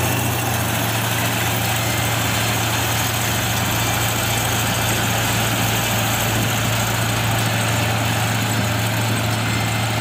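Kubota R1-551 combine harvester's diesel engine and threshing machinery running steadily while it harvests rice, giving a constant low hum.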